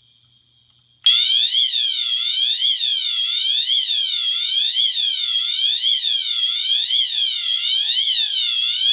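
Fire alarm sounder on a Fire-Lite MS-9200 system in alarm. A faint steady high tone is heard first; about a second in, a loud tone starts that sweeps up and down in pitch, repeating nearly twice a second.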